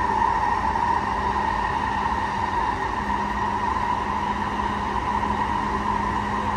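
E233-7000 series electric train running between stations, heard from inside the car: a steady rumble of wheels and track with a constant high hum over it.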